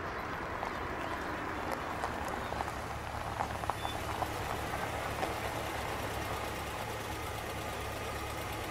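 Car engine running low and steady as a white sedan pulls up and idles, with a few light clicks about two to five seconds in.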